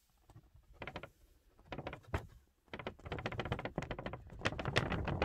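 Sheet of paper rustling and crackling as it is handled and tapped to pour excess embossing powder back into its pot. The crackle comes in short bursts at first and becomes nearly continuous from about three seconds in.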